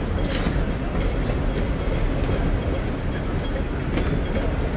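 Hong Kong double-deck electric tram running along its street rails: a steady low rumble with scattered sharp clicks and rattles.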